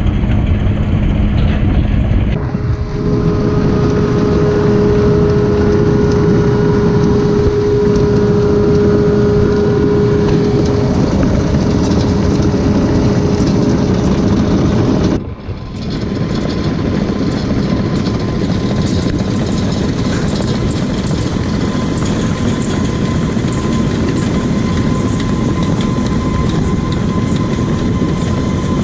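Truck engine running with a steady low drone and rumble. It breaks off abruptly twice and picks up again.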